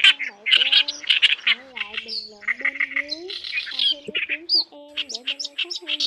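Reed warbler song from a bird-trapping lure recording: a fast, harsh chattering of repeated grating notes. Lower gliding notes run beneath it.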